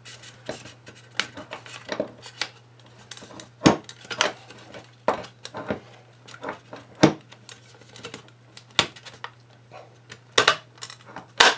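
AR-15 polymer handguard half being worked into place against the delta ring: irregular plastic-on-metal clicks, knocks and scrapes, with a few sharper snaps, the loudest near the end.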